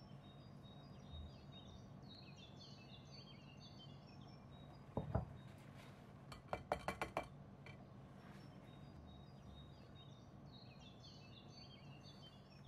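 A measuring spoon clinking against a metal sieve over a glass bowl as cocoa powder is knocked off it: one knock about five seconds in, then a quick run of about five light taps. Faint chirping of birds in the background, early on and again near the end.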